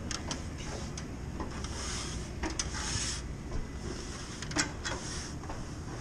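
Metal access panel and ladder being handled: scattered light metallic clicks and knocks with a few short rustling scrapes, over a steady low background hum.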